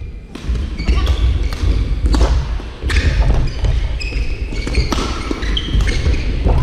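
Badminton doubles rally: sharp, irregular clicks of rackets striking the shuttlecock, mixed with shoe squeaks and footsteps on the court floor, over a steady low rumble.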